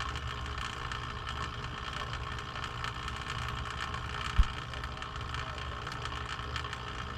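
Water running out of an air-conditioner condensate drain line as it is flushed, over a steady low hum, with a single sharp thump about four seconds in.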